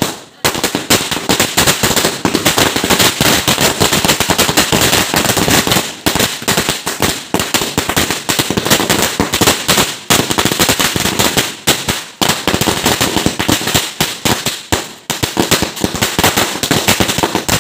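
A long string of firecrackers bursting on the ground in rapid, crackling succession, with a few brief pauses.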